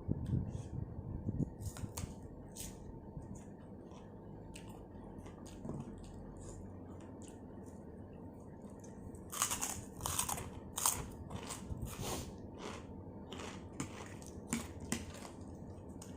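A person chewing and biting crunchy food close to the microphone, with a run of louder, crisp crunches about two-thirds of the way through.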